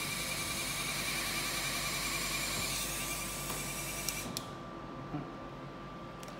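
LPG vacuum-roller body-slimming machine running: a steady hissing whir with a high whine. About four seconds in, a couple of clicks come and the hiss cuts off suddenly, leaving a fainter steady hum.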